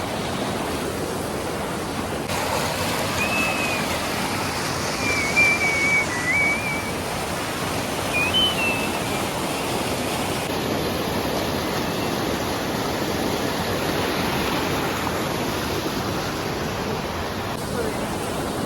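Steady rushing of a river flowing over rocks, with a few short high chirps between about three and nine seconds in.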